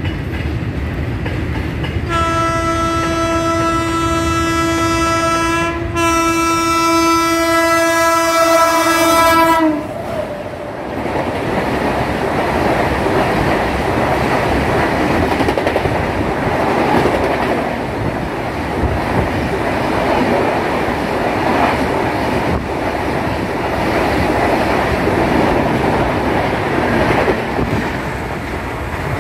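Train horn sounding two long blasts, the second dropping slightly in pitch at its end. Then the loud, steady rush and wheel clatter of a high-speed express train passing close by at speed.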